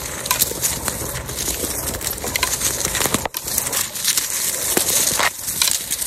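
Onewheel Pint electric board's tyre rolling fast over dry leaves and forest litter: a dense, steady crunching and crackling of leaves and twigs, with wind rumbling on the microphone. The sound drops briefly a little over three seconds in.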